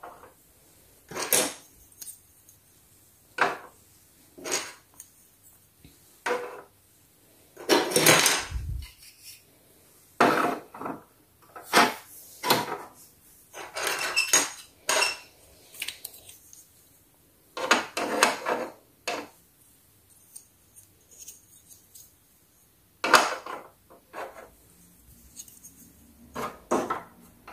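Small plastic Sylvanian Families school tables and chairs being set down one by one in a plastic dollhouse: a scattered series of light plastic clacks and taps, in ones and short clusters, with pauses between them.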